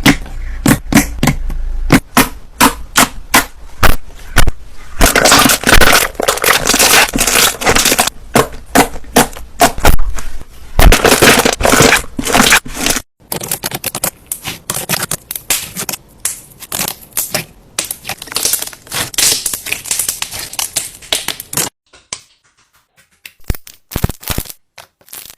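Slime being squeezed and poked close to the microphone, giving rapid sharp pops and dense crackling. It breaks off briefly about halfway, stops near the end, and a few last clicks follow.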